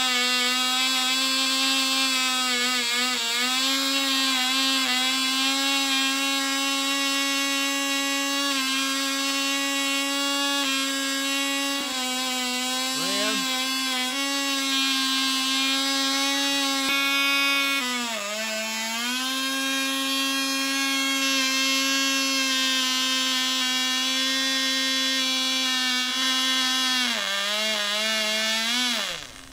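Cox .020 Tee Dee, a tiny two-stroke glow engine, running strongly at high revs with a steady high-pitched whine. Its speed sags briefly about two-thirds through and again near the end, then it winds down and stops just before the end.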